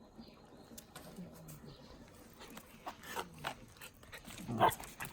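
Two Shiba Inus play-fighting: low play growls and grunts with scuffling. Faint at first, getting louder toward the end.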